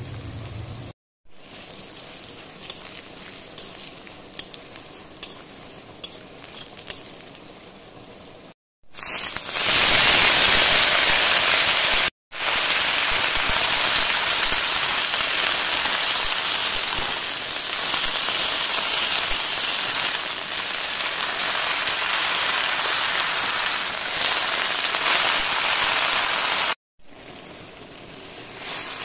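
Chopped green chillies and garlic frying in oil in an iron kadai, a light sizzle with scattered pops. About nine seconds in it turns into a much louder, steady sizzle as goosefoot greens fry in the pan, cut off briefly a few times.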